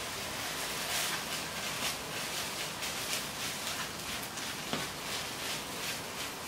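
Garlic fried rice sizzling in a nonstick pan while being stirred and turned with a plastic spatula: a steady frying hiss with repeated short scraping strokes, and a sharp tap about five seconds in.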